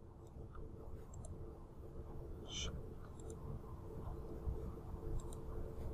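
Faint computer mouse clicks, scattered and irregular with one sharper click about two and a half seconds in, over a low steady electrical hum.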